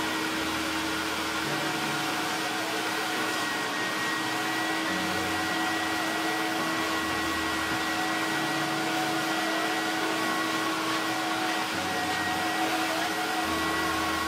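Hot-water carpet extractor running steadily, a constant hum with a high whine over it, as its clear hand tool is drawn across car floor carpet.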